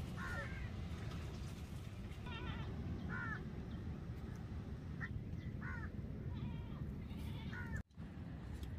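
About six short animal calls, spaced a second or two apart, over a steady low rumble. The sound drops out briefly near the end.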